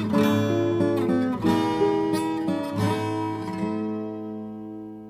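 Closing theme music: strummed acoustic guitar chords, ending on a held chord that slowly fades.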